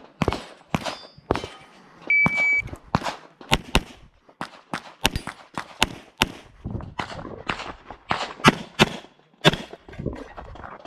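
Electronic shot timer beeps once, about two seconds in, signalling the start, then an HPS/STI 2011 pistol in .40 S&W fires a rapid string of shots, many in quick pairs. A few sharp shots come before the beep.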